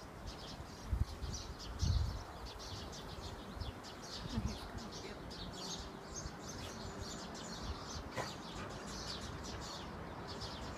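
Rapid high-pitched animal chirping, many short chirps a second that run on throughout, with a few low thumps in the first two seconds.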